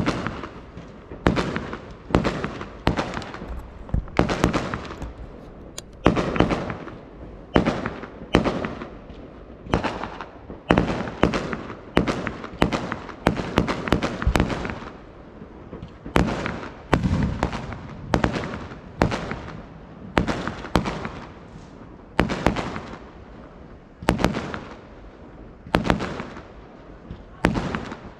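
Fireworks display: aerial shells bursting one after another in a steady barrage, about one bang every second, each followed by a rolling echo.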